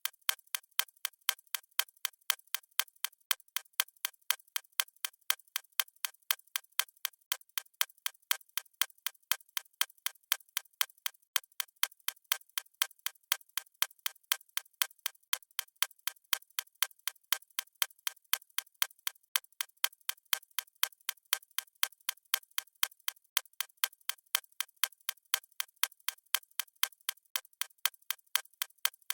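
Clock ticking sound effect: a steady run of evenly spaced, sharp ticks.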